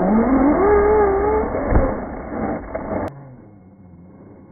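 Brushless electric motor and drivetrain of an RC Wraith rock buggy whining, rising in pitch as it speeds up and then holding steady, with a thump a little under two seconds in. The sound cuts abruptly to a much quieter level after about three seconds.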